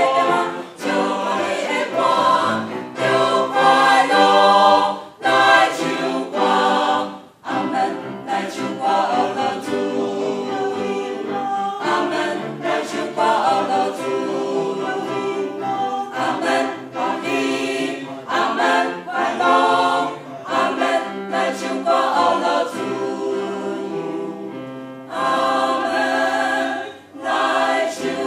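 A mixed church choir of men and women singing a hymn of praise, with short pauses between phrases.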